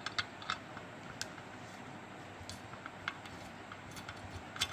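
Scattered small metallic clicks and taps of a screwdriver working the nuts on the body of a dismantled electric iron, over faint background hiss.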